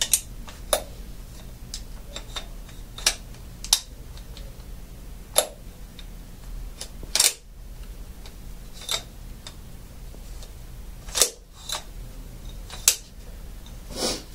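Sharp clicks and knocks of the parts of a Hilti powder-actuated nail gun being handled and fitted back together: about a dozen at irregular intervals as the piston and barrel assembly are slid and locked into place.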